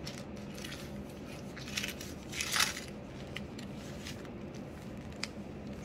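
Clear plastic sleeves rustling and crinkling as a stack of them is handled and leafed through, in a few short bursts, the loudest about two and a half seconds in, with small clicks between.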